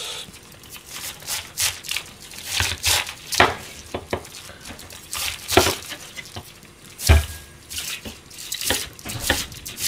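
Kitchen knife slicing through a head of cabbage on a plastic cutting board: crisp crunching cuts at irregular intervals, with the blade knocking the board, the loudest knock about seven seconds in.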